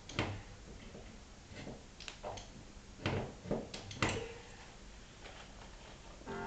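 Irregular sharp knocks and clunks, about five in all, the loudest around the middle: tools or metal parts being handled and set down.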